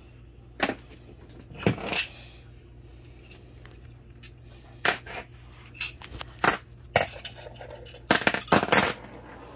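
Scattered sharp metallic clinks and clicks of hand tools and small steel bolts against the aluminium valve body and case of a Honda B7TA automatic transmission during teardown, with a quick run of clinks near the end. A faint steady hum sits underneath.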